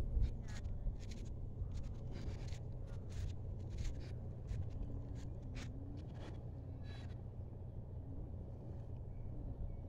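Footsteps on a sandy path with dry grass, about two steps a second, stopping about seven seconds in, over a steady low rumble.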